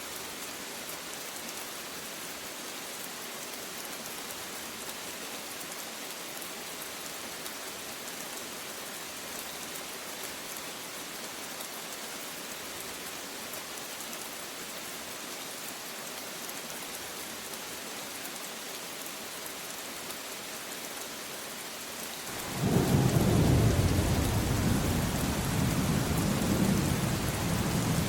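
Steady rain falling, an even hiss, with a low rumble of thunder breaking in suddenly near the end, loudest at first and rolling on.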